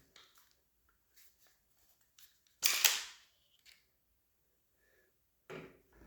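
Clicks and clacks of paintball-marker parts being handled during disassembly, with one louder clack about three seconds in and a smaller one near the end.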